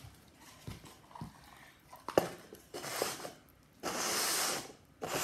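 Paper cups being set down on a wooden floor: a few light taps and one sharp tap about two seconds in, then several short bursts of rustling.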